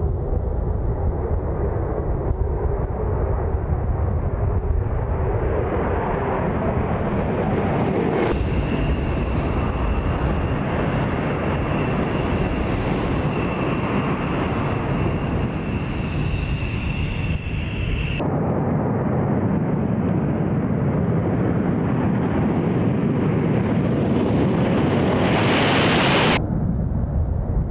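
Military jet engines running loud, in several edited takes that change abruptly. In the middle take a steady high turbine whine sits over the rumble. Near the end a rushing hiss swells as a jet passes close, then cuts off suddenly.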